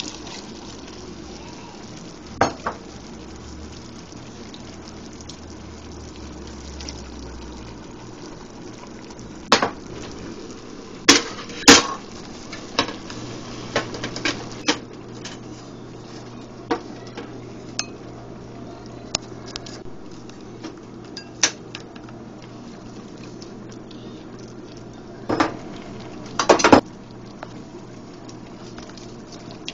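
A utensil clinking and knocking against a metal soup pot while ingredients are added and stirred in: scattered sharp knocks, the loudest a close pair about a third of the way in and another pair near the end, over a steady low hum.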